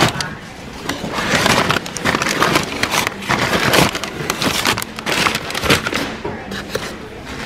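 Paper bags of seed potatoes crinkling and rustling as they are handled close to the microphone, in irregular crackling bursts.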